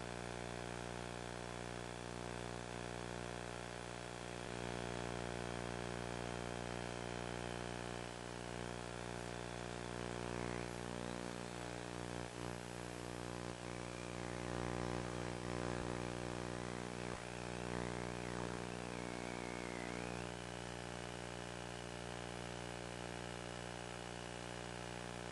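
Multirotor drone propellers and motors humming steadily. Their pitch wavers up and down partway through, then settles again near the end.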